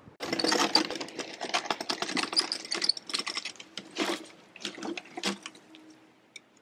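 A wheelbarrow load of broken branches being wheeled over twig-strewn ground and tipped out: dense crackling and clicking of sticks that thins out after about three seconds and fades away near the end.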